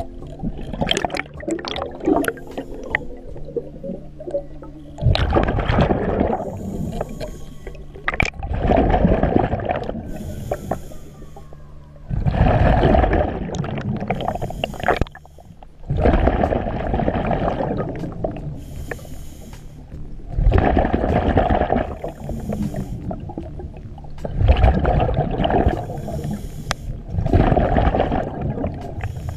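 Scuba diver breathing through a regulator underwater: a loud rush of exhaled bubbles about every three to four seconds, with a thinner hiss between some of them. A low steady hum runs through the first few seconds.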